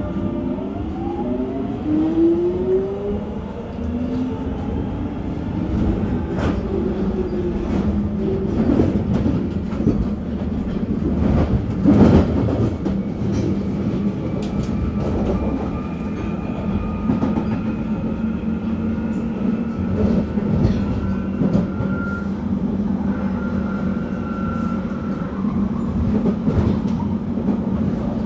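London Underground 1996 Tube stock train accelerating from a standstill: the Alstom GTO inverter and traction motors whine in several tones that climb in pitch over the first few seconds, then settle into a steady running drone. Through it come repeated sharp cracks from the current-collector shoe gear arcing on the conductor rail, one loud crack about halfway through.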